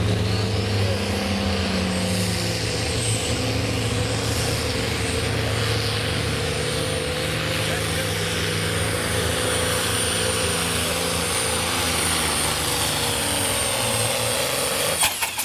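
John Deere pulling tractor's engine running hard under load as it drags a weight-transfer sled, a steady loud note throughout. Just before the end the sound drops off abruptly with a few sharp clicks.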